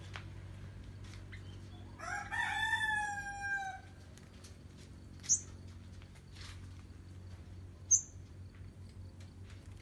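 A rooster crows once, a call of nearly two seconds that starts about two seconds in and sinks slightly in pitch. Later come two brief, sharp, high chirps from caged sunbirds, about five and eight seconds in.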